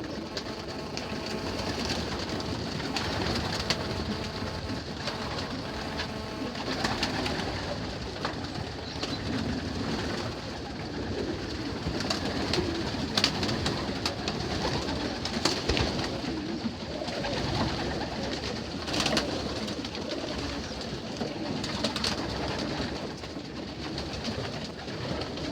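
A loft full of young racing pigeons cooing and calling together in a steady chorus, with a few sharp clicks here and there.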